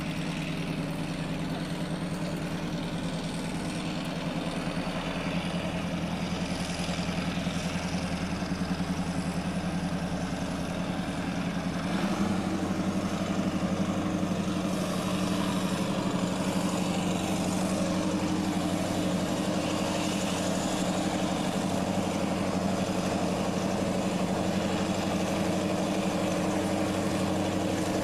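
Diesel locomotives, a Class 14 diesel-hydraulic leading a Class 27, running under power as they pull a passenger train slowly away. Their engine note steps up and gets louder about twelve seconds in as they work harder.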